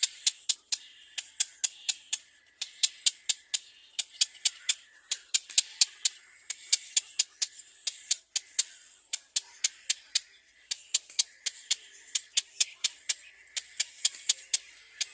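Baby birds calling: a continuous run of sharp, high chirps, several a second.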